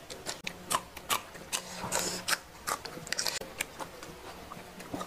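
Close-up chewing and mouth sounds: irregular wet clicks and smacks, several a second, of a person eating.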